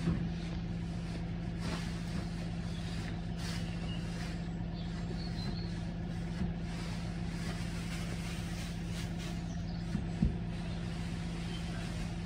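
A steady engine hum from a running machine, with the rustle of dry straw bedding being gathered and thrown by hand over it, and a short knock about ten seconds in.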